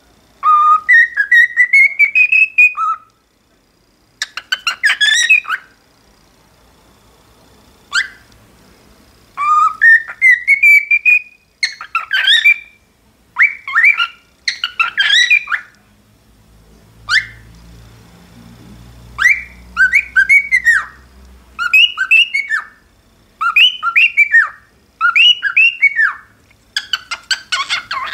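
Cockatiel whistling its natural song: bursts of clear whistled phrases, several rising in pitch, with short pauses between them, coming in quicker, shorter phrases in the second half.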